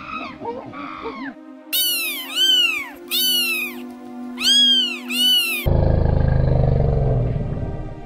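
Monkey calls for about the first second, then a kitten meowing five or six times in short, high, rising-and-falling calls. About two thirds of the way in, a loud low elephant rumble takes over and fades towards the end.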